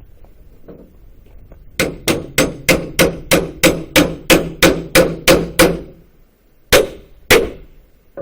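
Hammer striking a hardwood pallet board over and over, about thirteen quick blows in a row with a clanging ring, then a pause and two more single blows, knocking the board loose from its nails.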